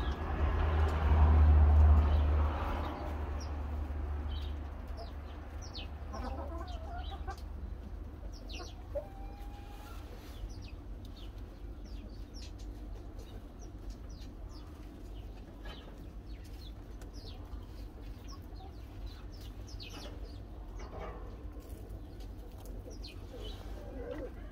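Chickens clucking with small birds chirping, the chirps coming often and short. A loud low rumble fills the first few seconds.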